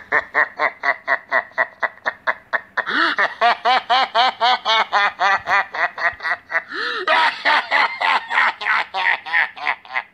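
A person's long, maniacal laughter: rapid 'ha-ha-ha' syllables about five a second, getting louder about three seconds in, with a short catch of breath near seven seconds before the laughing starts again.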